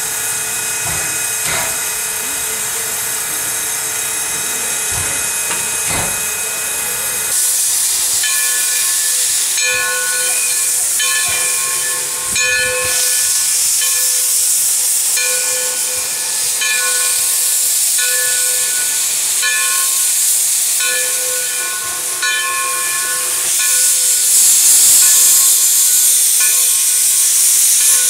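Black River and Western 2-8-0 #60, a Consolidation steam locomotive, hissing loudly as steam blows out around its cylinders. Through the hiss a ringing tone pulses on and off about once a second. Before the hiss starts, about seven seconds in, there is a steady set of tones with a few knocks.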